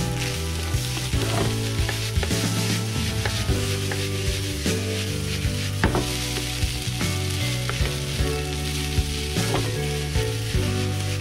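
Egg fried rice sizzling in a non-stick frying pan over a gas burner, stirred and tossed, with scattered clicks and scrapes of the utensil against the pan. Background music plays underneath.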